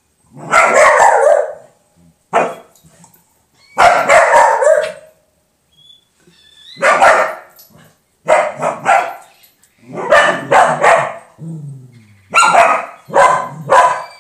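A dog barking loudly at a cat in repeated bouts of several quick barks each, with a short falling cry between bouts a little past eleven seconds in.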